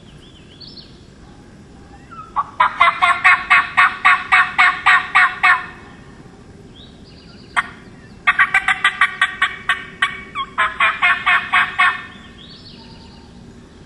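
Four-reed diaphragm turkey call (a cutter) worked loud and close in three runs of sharp, hen-like notes, about four a second, to fire up a gobbler. A single sharp click comes between the first and second runs.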